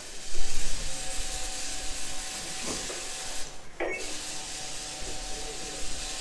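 Intercom door-release buzzer buzzing as the entrance door is unlocked remotely. It cuts out for a moment about three and a half seconds in, then starts again.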